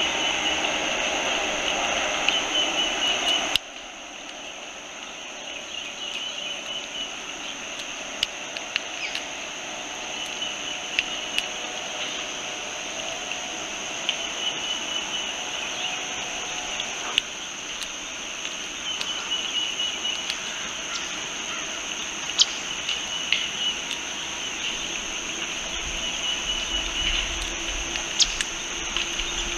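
Outdoor ambience with a steady high-pitched hum and a fainter on-and-off buzz. A louder rushing noise in the first few seconds cuts off abruptly, and a dozen or so scattered sharp clicks follow.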